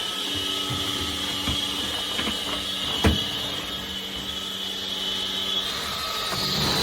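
Anyson cordless stick vacuum running with a steady high-pitched motor whine, with a few light clicks and one sharp knock about three seconds in.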